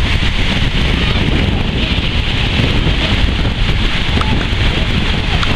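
Strong sea wind buffeting the microphone with a steady low rumble, over an even hiss of surf.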